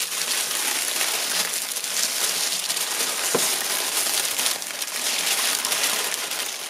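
Honeycomb kraft packing paper and tissue paper rustling and crinkling as hands pull them apart, with a single sharp click a little over three seconds in.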